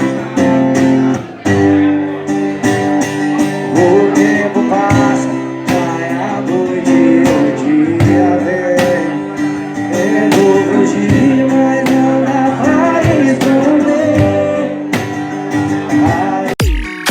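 Background music: a guitar-led song passage, with an electronic beat with heavy bass hits cutting in just before the end.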